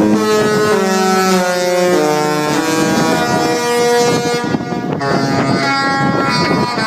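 Disney cruise ship's musical horn playing a tune: a string of loud, held horn notes stepping up and down in pitch, with a short break about four and a half seconds in before the next phrase. Wind buffets the microphone.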